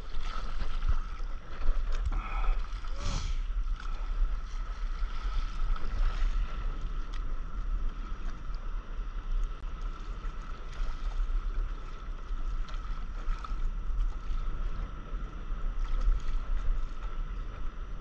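Wind rumbling on an action camera's microphone close to the sea surface, with water sloshing and splashing around a paddleboard. A faint steady high tone runs underneath.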